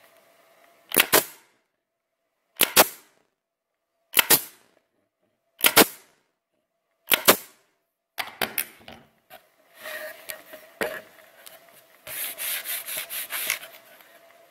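Pneumatic air tacker (brad nailer) test-firing five times, about one shot every second and a half, each a sharp doubled crack as the driver strikes and returns, after its worn piston and driver blade were replaced. In the second half there are rubbing and scraping sounds with quick ticking near the end.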